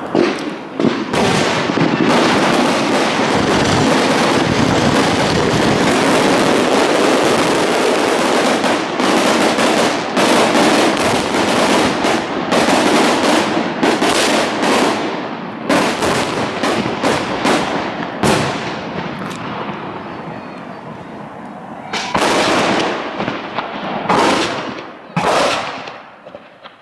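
Aerial fireworks shells bursting in rapid succession: a dense barrage of bangs and crackling that thins out about three quarters of the way through, followed by a few separate bursts and a brief lull near the end.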